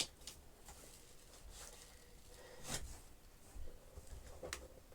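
A few light clicks and knocks from vacuum cleaner attachment tools being handled and fitted, the loudest about two and three-quarter seconds in; the vacuum motor is not running.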